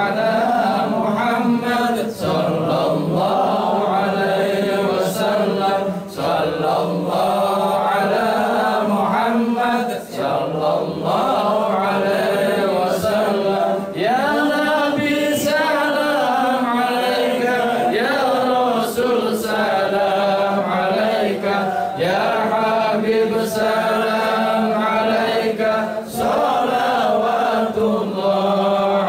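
A group of men chanting Islamic devotional verses together, led by one voice through a microphone, in sung phrases with a brief break about every four seconds.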